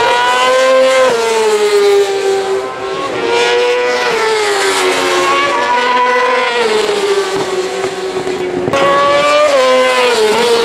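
Racing motorcycles passing at speed, one after another, each high engine note rising and then dropping as it goes by.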